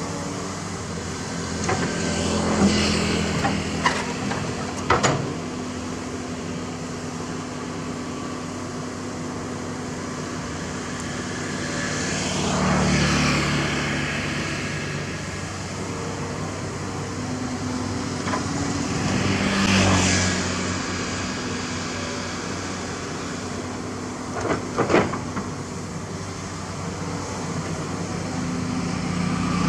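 Komatsu PC228 hydraulic excavator working: a steady engine hum that swells under load several times as the boom and bucket move. A few sharp knocks come through, a cluster in the first five seconds and another near 25 seconds.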